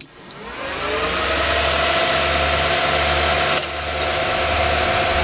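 File server with its case open powering up: a short high beep as it comes on, then its cooling fans spin up, their whine rising in pitch over about the first second before settling into a steady loud whir. One brief click comes about three and a half seconds in.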